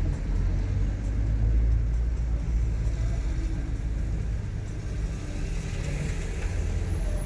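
Car driving along: a steady low rumble of engine and road noise.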